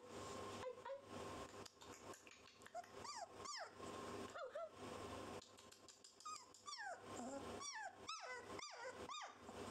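Four-week-old rough collie puppy whimpering: short, high squeaks that each fall in pitch, a few at first and coming thicker in the second half.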